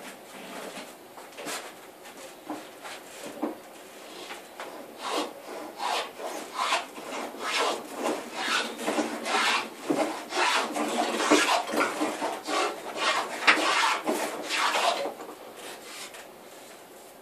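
Record 050 combination plane with a beading cutter cutting a bead in pine: stroke after stroke of the iron shaving the wood in quick succession, getting louder from about a third of the way in and stopping shortly before the end.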